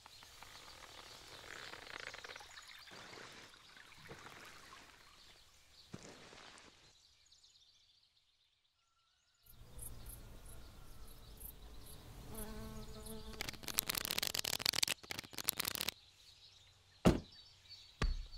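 Outdoor ambience with insects buzzing, broken by a few seconds of near silence in the middle. A single sharp hit comes about a second before the end.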